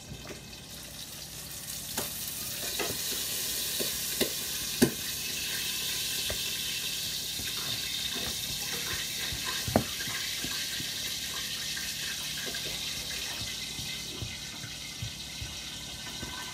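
Water running steadily from a tap, with scattered knocks and clinks of kitchen utensils, two of them sharper about five and ten seconds in.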